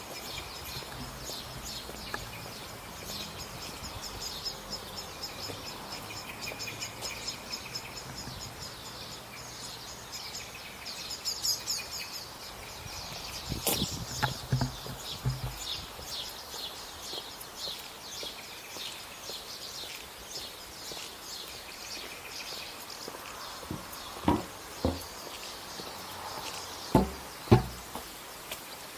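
Small birds chirping rapidly and continuously, over a low steady hum in the first half. A few sharp thumps come about halfway through and again in pairs near the end.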